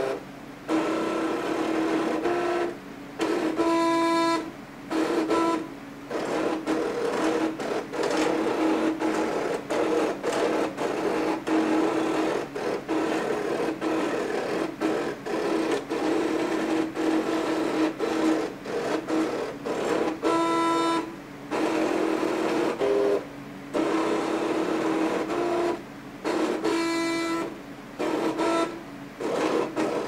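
Cricut electronic cutting machine cutting heavy cardstock at maximum pressure: its motors run in stop-start bursts, a steady whirr broken by many short pauses as the blade carriage and mat shuttle back and forth, with a higher whine a few times. Kind of loud.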